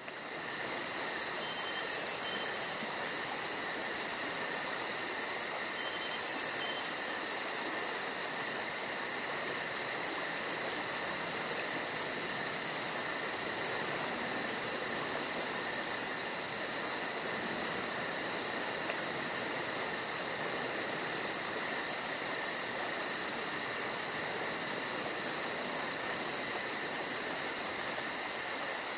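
Cicada singing: a continuous high-pitched buzz made of a very fast, even pulsing, steady in pitch and loudness.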